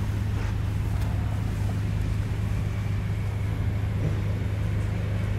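A steady, low-pitched engine drone with a constant hiss over it, unchanging in level.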